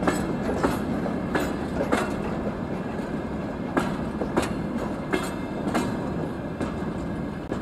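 Freight train of covered hopper wagons rolling past close by: a steady rumble of steel wheels on rail, with sharp clicks every second or so as the wheels cross rail joints.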